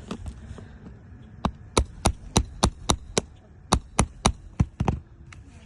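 Hammer blows, about a dozen sharp strikes at roughly three a second with a short break midway, as nails are worked out of a roof so the damaged piece can be removed.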